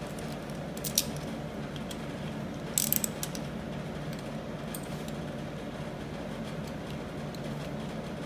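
Metal hand tools clinking: a socket, extension bar and ratchet handle being handled and fitted together. One sharp click about a second in and a short cluster of clinks near three seconds, over a steady low hum.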